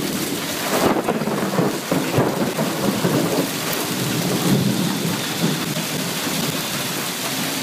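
Golf-ball-sized hail falling with heavy rain, pelting asphalt and parked cars: a dense, steady clatter of impacts with harder knocks standing out now and then.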